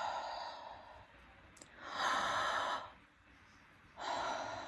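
A woman taking deep, audible breaths in and out, one about every two seconds, showing how the lungs fill and empty.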